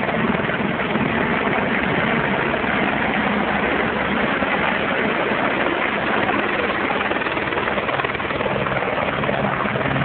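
Helicopter running steadily, a dense rushing rotor and engine noise with a faint low hum underneath.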